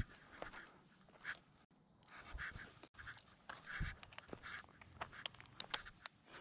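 Faint footsteps scuffing and crunching on a stone-paved path strewn with grit and dry leaves, in irregular light steps.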